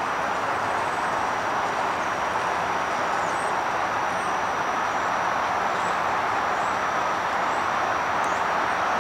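Steady rolling rumble of a Flexity Outlook low-floor streetcar moving slowly around a loop track, over a constant background roar of traffic. A faint high whine holds steady throughout.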